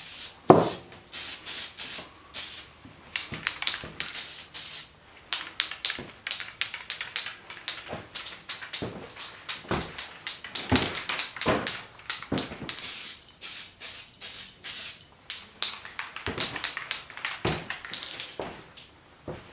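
Aerosol can of heat-resistant spray paint hissing in many short bursts as engine covers are spray-painted. A single sharp knock about half a second in is the loudest sound.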